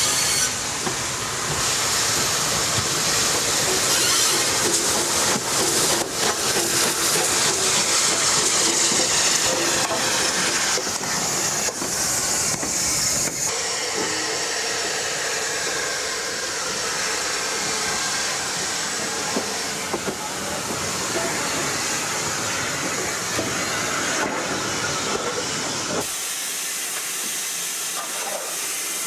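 Rebuilt West Country class Pacific steam locomotive with steam hissing loudly, and knocks and clanks from the locomotive and rails in the first half. The sound changes abruptly about halfway through and again near the end.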